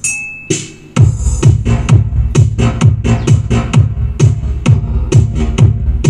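Electronic dance music with a steady kick-drum beat at about two beats a second, played through an mPro EQ1500 15-band graphic equalizer to loudspeakers. The beat drops out just after the start and comes back about a second in.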